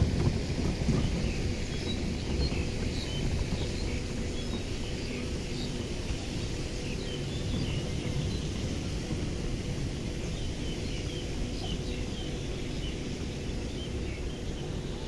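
Outdoor park ambience: scattered short bird chirps over a steady low rumble, with a faint steady hum underneath.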